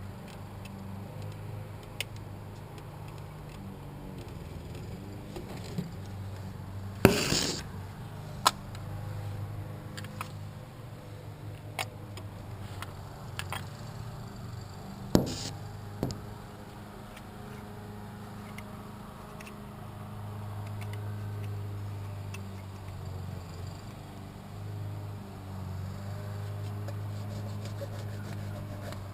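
Scattered sharp clicks and knocks of hand tools and parts being handled during repair work, the loudest a heavier knock about seven seconds in, over a steady low hum.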